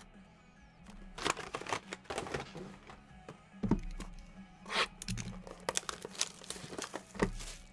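Plastic shrink-wrap on sports card hobby boxes being torn off and crinkled in irregular bursts, with a couple of thumps as boxes are handled on the table.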